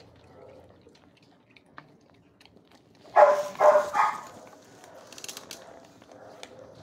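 A dog barking three times in quick succession, a little over three seconds in, followed by faint clicking.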